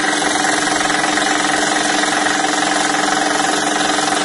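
Scroll saw running steadily, its reciprocating blade cutting through 10 mm birch plywood.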